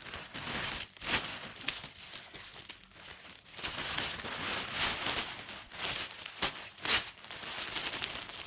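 Packaging crinkling and rustling as goods are handled and unwrapped, in irregular bursts with a few sharper crackles.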